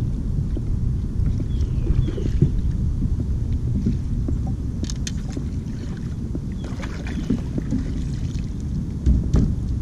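Steady wind rumble on the microphone with water around a kayak, and scattered small splashes, clicks and knocks as a bass is fought and lifted out in a landing net. The sharpest knock comes about nine seconds in.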